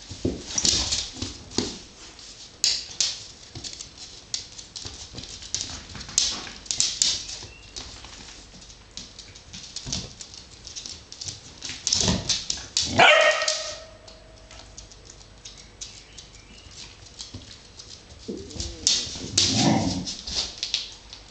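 An adult dog and two puppies play-fighting on a wooden floor: claws clicking and scrabbling, with puppy yips. One loud high-pitched bark about two-thirds of the way through, and more yipping near the end.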